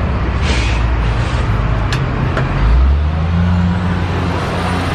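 Low, steady rumble of street traffic, with a deeper engine hum settling in about three seconds in.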